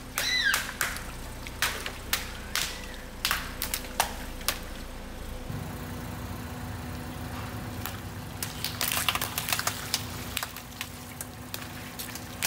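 Water balloons bursting one after another under a slowly rolling car tyre: a run of sharp pops and splats, thickest in the first few seconds and again in a cluster about nine seconds in. The car's engine runs steadily underneath.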